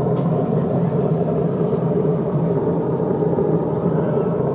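A loud, steady, low mechanical drone from an unseen source in the sky, holding an even pitch throughout, that the recordist likens to thrusters.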